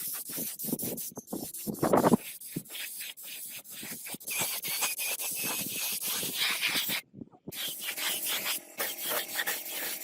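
Scraping and rubbing on a surface by hand: a rough, scratchy hiss made of many short strokes, with one heavier stroke about two seconds in and a brief break about seven seconds in.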